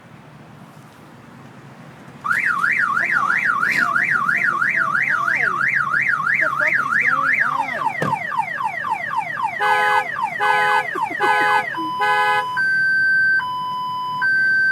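Car alarm siren going off about two seconds in and cycling through its tone patterns: a fast up-and-down warble, then quicker rising sweeps, rapid chirps, and a two-note high-low alternation near the end. It is set off by accident while the owner is locking and unlocking the car.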